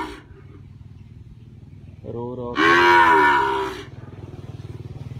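Young white zebu cattle mooing: the tail of one call as it opens, then a second loud moo of about two seconds that starts low and swells, beginning about two seconds in. A steady low hum runs underneath.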